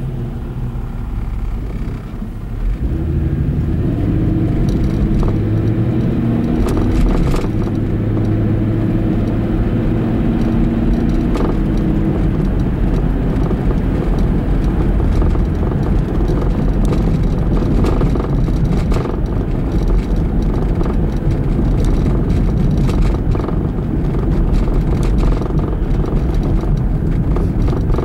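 Car engine and road noise heard from inside the cabin: the car pulls away about two seconds in, the engine note holding under acceleration for several seconds, then settles into a steady low tyre-and-road rumble while cruising.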